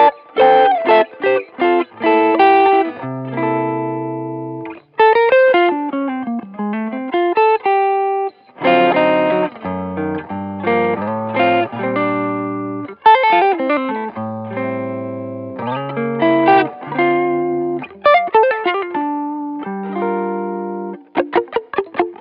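PRS McCarty 594 electric guitar playing a jazz-style phrase over a backing track: quick single-note runs, some sliding lines and held chords, over a bass line.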